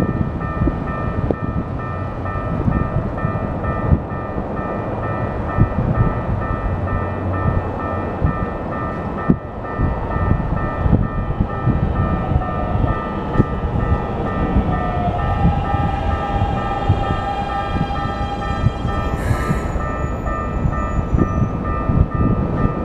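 Japanese electronic level-crossing warning bell ringing in a steady repeating pattern while a Keikyu electric train runs past, its wheels clattering and rumbling. About halfway through, the train's traction motors give a rising whine, and a short sharp burst of sound comes near the end.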